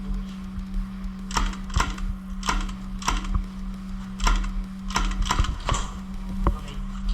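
A series of irregular sharp clicks and snaps, about a dozen, starting about a second in, over a steady low hum.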